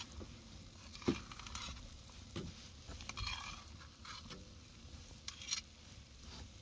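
A spoon scraping and knocking against a cooking pan as curry is dished up: a few separate knocks, the sharpest about a second in, and short scrapes in between.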